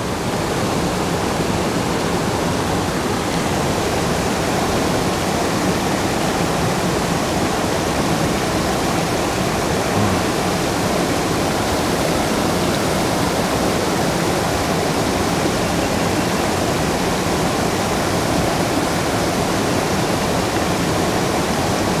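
Rushing water of a creek waterfall: a steady, even hiss of falling water.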